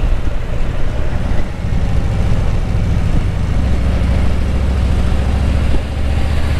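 Motorcycle engine running while riding: a steady low rumble with a fast pulse, with wind rushing over the microphone. The rumble dips briefly about six seconds in.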